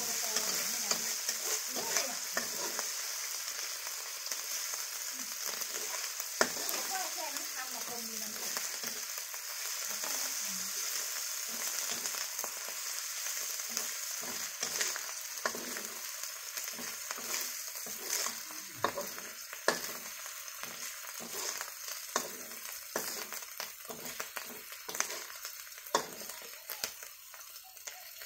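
Red curry paste sizzling as it is stir-fried in hot oil in a wok, with a metal spatula scraping and clicking against the pan. The sizzle eases off toward the end.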